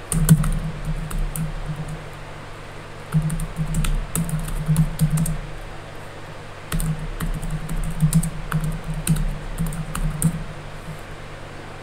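Typing on a computer keyboard: quick runs of key clicks in about three bursts with short pauses between them.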